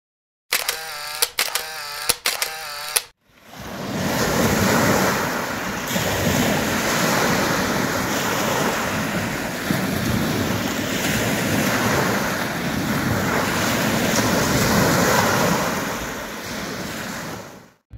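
A brief pitched sound with wavering pitch in the first three seconds, then small lake waves lapping and breaking steadily on a pebble shore.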